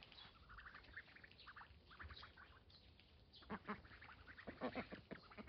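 A flock of domestic ducks quacking faintly to one another in two short runs of calls, chattering among themselves as they graze.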